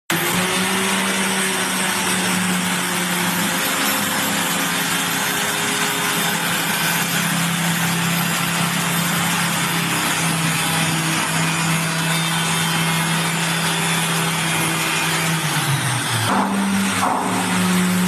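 Electric power tool cutting a groove in a wooden wardrobe panel: a steady motor whine over loud cutting noise. Near the end the motor's pitch sags and briefly breaks, then picks back up.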